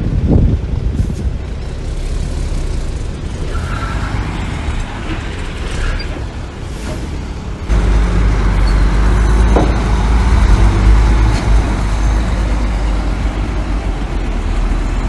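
Heavy diesel earthmoving machinery running with a steady low rumble. About halfway through it turns suddenly louder and deeper.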